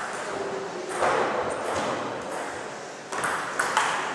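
Table tennis ball being hit back and forth in a rally, sharp clicks off the bats and table, over murmur from people in the hall.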